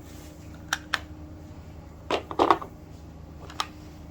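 Small plastic toy pieces being handled: a few short clicks and knocks, a pair about a second in and a louder cluster a second later, as a toy makeup set is examined.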